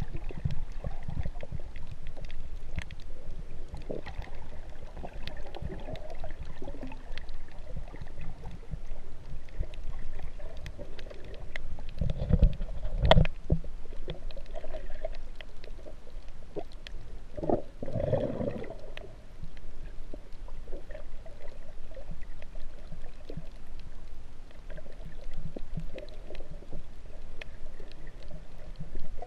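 Muffled underwater sound from a camera held just below the surface: a low, steady rumble and wash of moving water with many faint scattered clicks, and two louder, thumping bursts of water noise near the middle.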